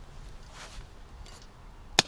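Quiet backyard ambience with two faint brief rustles, ending in a single sharp click or knock, the loudest sound here.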